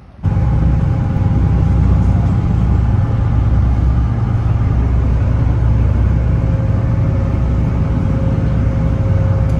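Passenger ferry's diesel engine running steadily, a loud, even low rumble with a couple of faint constant hums above it, heard on board. It starts abruptly a moment in.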